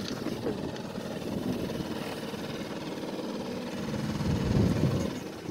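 Small sailboat's outboard motor running steadily while the boat is brought in to a dock, swelling louder for a moment about four seconds in.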